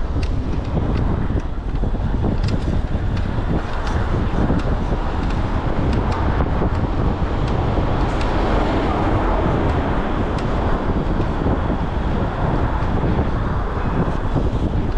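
Wind buffeting the microphone of a camera on a moving e-bike, heard as a steady low rumble with road noise and scattered faint ticks.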